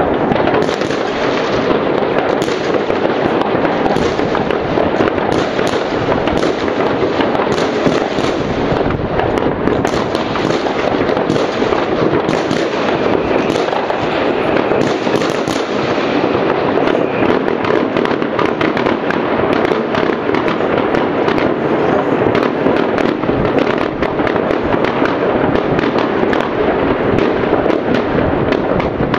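Many distant New Year fireworks going off across a city at once: countless overlapping bangs, pops and crackles merge into one continuous din, with sharp individual cracks standing out all through it.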